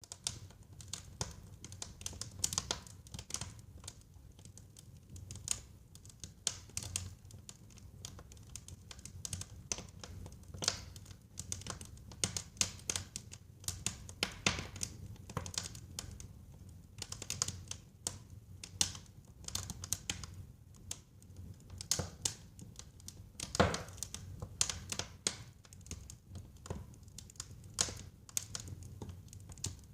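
Fire burning in a fireplace, crackling with irregular sharp pops and snaps over a low steady rumble. One pop, about three quarters of the way through, is louder than the rest.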